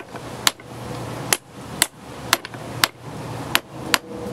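Sharp metal-on-metal hammer taps, about two a second, driving a new pitman arm down onto the splined sector shaft of a steering gearbox.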